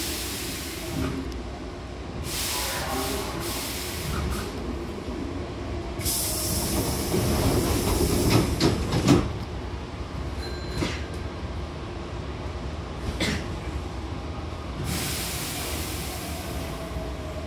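Hankyu commuter train's sliding double doors closing: a long hiss of air about six seconds in as the doors slide together, ending in a sharp knock around nine seconds as they meet. A low rumble runs underneath, with further bursts of air hiss before and near the end.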